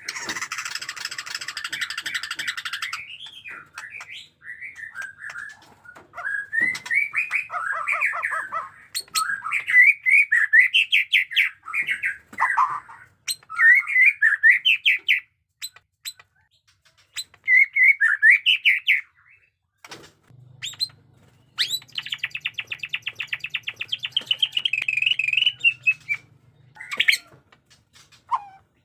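White-rumped shama singing a loud, varied song of whistled phrases that glide up and down. A harsh rattling burst opens it, and near the end comes a long rapid trill.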